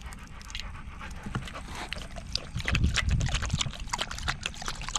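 A dog panting close to the microphone, mixed with many small clicks and crackles and a few low bumps.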